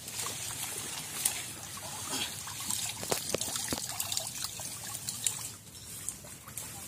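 Water trickling and dripping out through the mesh of a bamboo-framed lift net as it is raised out of a pond, with many small splashes and ticks of drops.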